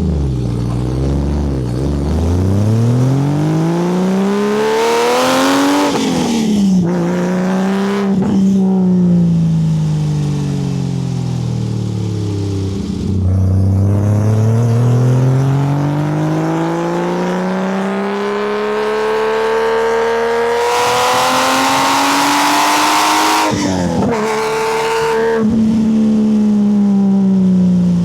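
Porsche 911 (964) air-cooled flat-six through a full custom exhaust, pulling hard through the gears: the pitch climbs, drops at each upshift and climbs again. In the middle it falls away for several seconds as the car slows off the throttle, then a long rising pull follows, with two quick shifts near the end.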